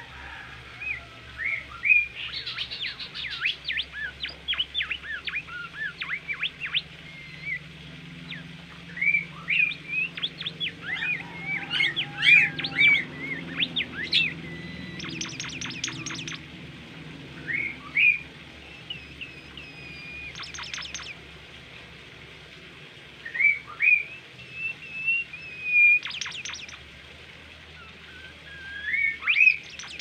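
Bimoli songbird singing in bouts: clear whistled notes and rising slurs mixed with rapid buzzy trills, loud and with short pauses between phrases.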